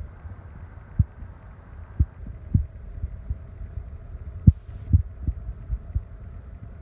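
Steady low hum of a running kitchen appliance drying meat, with a faint constant tone in it. About ten irregular dull thumps and rumbles run through it from the handheld phone being moved around.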